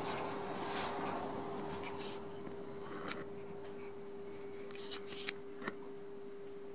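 Potter's wheel motor humming steadily while wet fingers rub against the spinning clay of a small thrown lid. A few short sharp clicks come in the second half.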